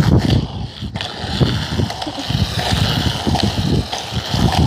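Rolling noise while riding along a street: wheels running over asphalt, with wind buffeting the microphone in an uneven rumble and steady hiss.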